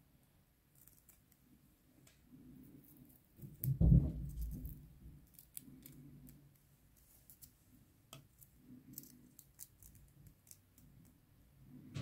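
Metal tweezers picking at and peeling dry, papery shed skin off a bearded dragon: faint, crisp crackles and ticks scattered throughout. A dull low thump about four seconds in is the loudest sound.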